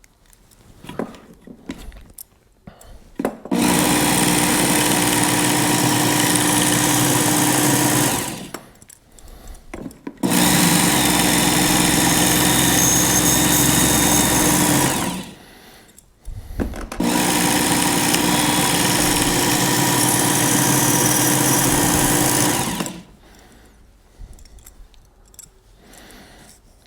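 Work Sharp Ken Onion electric belt sharpener running in three steady bursts of about five seconds each as a treble hook's points are sharpened, with light clicks of the hook being handled between runs.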